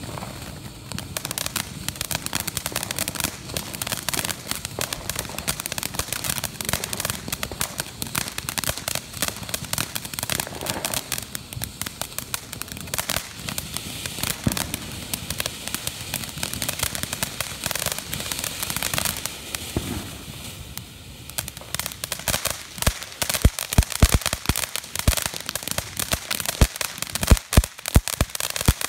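Ground fountain firework spraying sparks with a continuous hiss and dense crackling. From about three-quarters of the way through, louder separate sharp cracks and pops break through the crackle.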